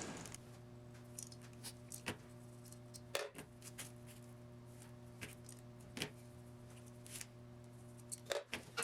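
A few scattered light clicks and taps, like small metal parts or tools being handled, over a faint steady electrical hum.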